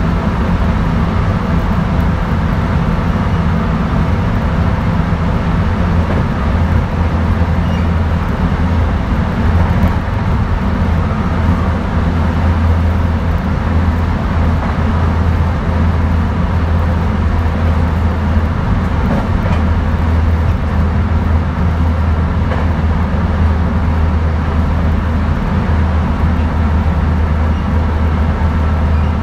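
Running noise heard aboard a JR West 223 series 1000-subseries electric train fitted with a Hitachi first-generation IGBT inverter, travelling at steady speed: a continuous low rumble of wheels on the rails with a faint steady hum above it.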